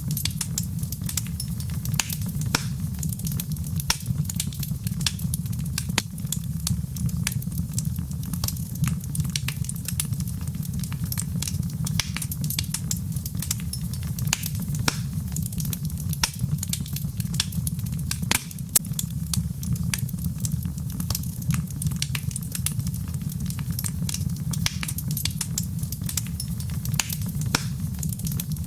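Wood fire burning in a fireplace: a steady low rumble with constant scattered crackles and small pops, and one sharper pop about two-thirds of the way through.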